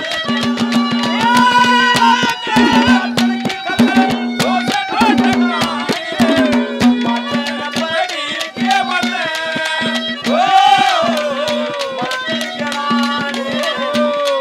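Haryanvi ragni folk accompaniment: hand drums beating fast and continuously under a steady held drone note, with a melody line that slides between notes above it.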